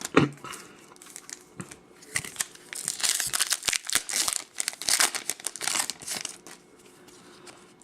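Foil trading-card pack wrapper being torn open and crinkled by hand, a dense run of crackling rustles in the middle with a sharp knock near the start.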